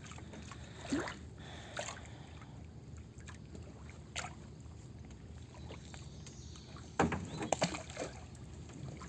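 Water lapping against a fibreglass canoe with a few small splashes and knocks as a rope is hauled in to lift a submerged mesh bag of live shrimp, and a cluster of louder splashes about seven seconds in as the bag nears the surface.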